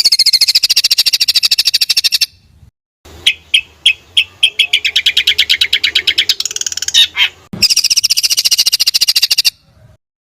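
African songbird singing loud rapid-fire trills of fast repeated high notes, about ten a second, in three runs separated by short pauses; the second run starts with a few spaced notes before speeding up. It falls silent shortly before the end.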